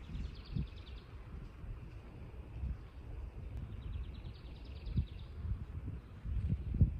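Wind rumbling on the microphone, with a small bird's rapid trill twice and a few dull thumps, the loudest just before the end.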